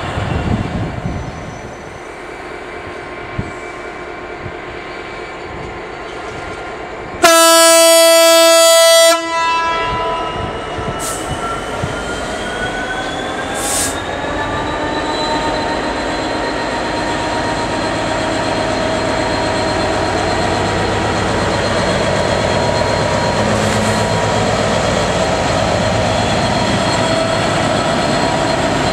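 A train horn sounds one loud, steady note for about two seconds. Then the running noise of an approaching train slowly grows louder, with a thin whine that rises in pitch and then holds steady.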